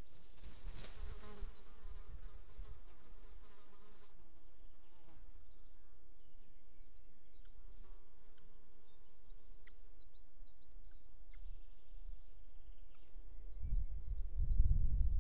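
A flying insect buzzing close to the microphone, its pitch wavering, loudest in the first few seconds, over a steady low rumble. Faint short high chirps come in later, and a louder low rumbling builds near the end.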